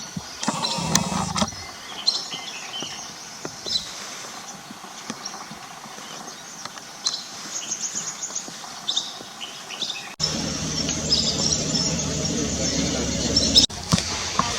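Wild birds chirping and calling repeatedly in short high notes. About ten seconds in, a louder steady low noise cuts in abruptly under the birdsong.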